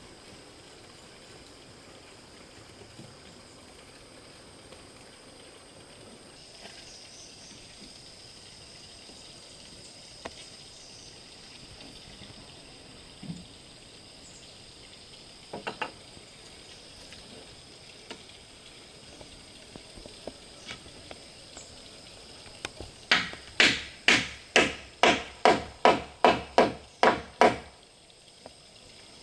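Hand-tool blows: a quick run of about a dozen hard strikes, roughly three a second, near the end, each with a short ring. Before them there are only a few scattered knocks and clicks over a faint, steady, high-pitched hiss.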